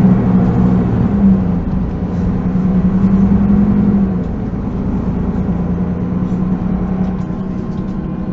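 Solaris Urbino 12 city bus heard from inside the cabin while riding: its engine and drivetrain drone steadily, with a humming tone that eases and gets quieter about four seconds in.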